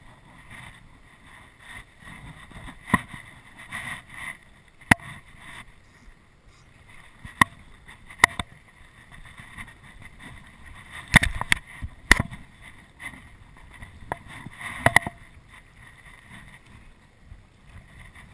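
Scattered sharp knocks and clicks, about eight in all and loudest about two-thirds of the way through, from the GoPro and fishing gear being handled aboard a small boat, over a faint steady hiss of wind and water.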